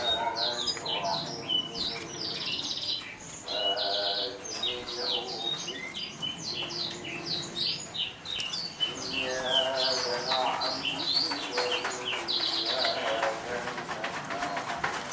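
Domestic canary singing a continuous fast song of rapid chirps and rolling trills.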